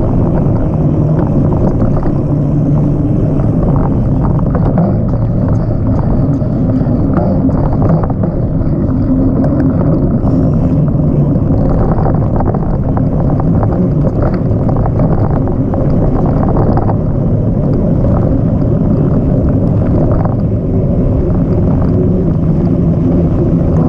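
Steady, loud rumble of a ride over a dirt trail: wind buffeting the camera's microphone and tyres rolling over rough dirt, with small irregular jolts.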